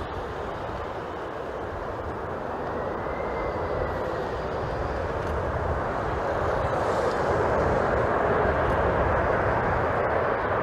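Jet airliner on approach: a steady rush of engine noise that grows gradually louder, with gusty wind rumbling on the microphone.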